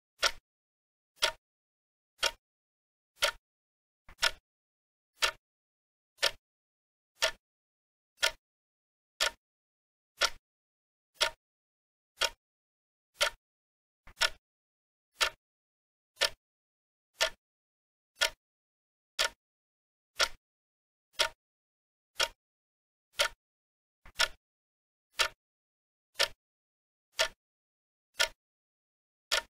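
Clock-tick sound effect, one sharp tick a second, marking a countdown timer for answering an exercise.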